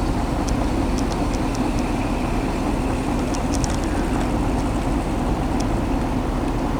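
Chevy pickup truck engine running steadily, heard from inside the cab as an even low drone, with faint light ticks over it.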